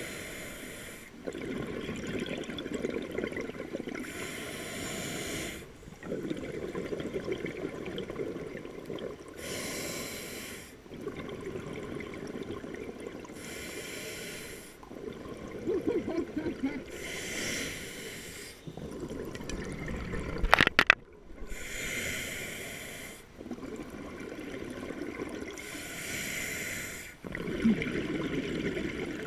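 Scuba diver breathing through a regulator underwater: a short hissing inhale every four seconds or so, each followed by a longer stretch of bubbling exhaust. A sharp knock about two-thirds of the way through.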